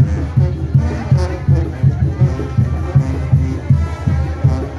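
Mexican banda brass band playing, with steady low brass and drum beats under sustained horn lines.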